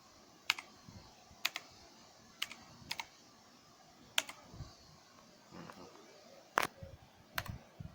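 Keys of a Fantech MK852 Maxcore mechanical keyboard pressed one at a time in a sound test: sharp single clicks, roughly one every half second to a second, with short gaps between.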